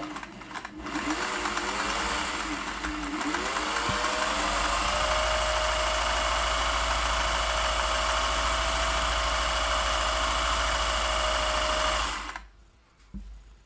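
Singer 401A sewing machine stitching a row of pattern stitch: the motor's hum climbs in pitch as it speeds up over the first few seconds, then runs steadily with a fast needle clatter, and stops about twelve seconds in.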